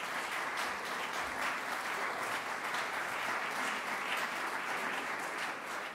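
Audience applauding steadily: many overlapping hand claps.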